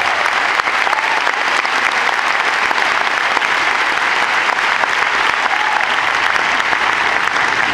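Large arena crowd applauding: a dense, steady wash of clapping from many hands.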